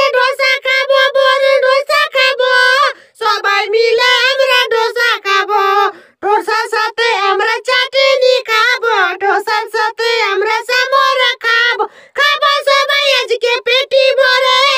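A high-pitched voice singing a wavering melody, with short breaks about three, six and twelve seconds in.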